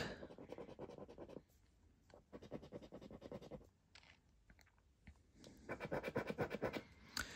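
Scratchcard's scratch-off coating being scraped away in quick rapid strokes, quiet, in three spells with short pauses between.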